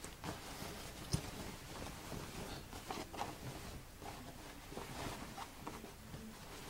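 Denim and cotton lining fabric rustling and shifting as it is handled, in irregular soft strokes, with one sharp light knock about a second in.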